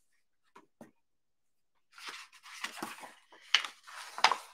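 Paper pages of a hardcover picture book being turned by hand: a couple of small clicks, then from about two seconds in, a run of paper rustling with a few sharper snaps.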